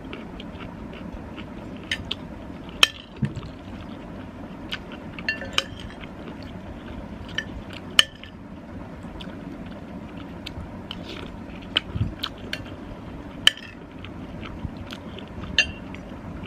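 A spoon clinking against a soup bowl now and then, sharp scattered clinks, with quiet eating sounds of someone taking pasta soup. A steady low hum runs underneath.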